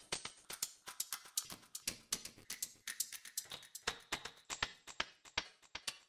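Klevgrand Skaka sampled hand percussion playing a sequenced pattern: a steady run of short, sharp clicks and ticks, several a second.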